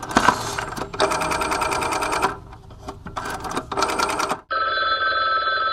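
Phone ringing sound effect: two long trilling rings, then from about four and a half seconds in a steadier ringing tone that is still going at the end, as the call comes in on a cell phone.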